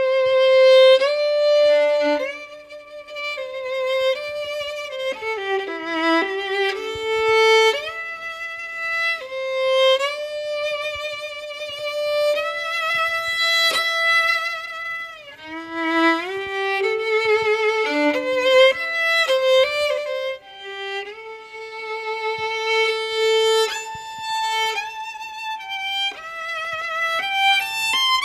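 Solo violin playing a slow, bowed melody. Notes are held for a second or two, several with wide vibrato, and now and then two strings sound together.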